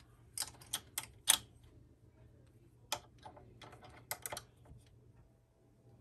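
Light, irregular metal clicks and taps of a small open-end wrench and a thin metal key against the nylock nuts and bolts of a 3D printer's gantry wheels as they are tightened, a dozen or so in loose clusters.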